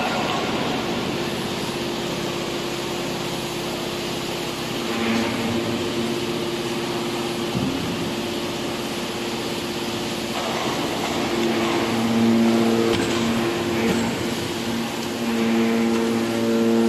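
Hydraulic drive of a scrap-metal bale breaker running, a steady machine hum made of several tones that strengthen and shift a few times as the cylinders work the clamping arms around the scrap bale.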